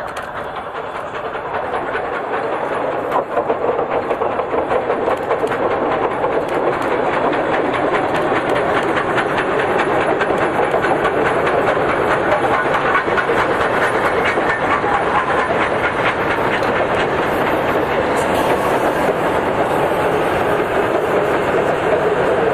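Passenger train rolling over a timber trestle bridge: a continuous clickety-clack of steel wheels over rail joints. It grows louder over the first several seconds as the train comes closer, then holds steady.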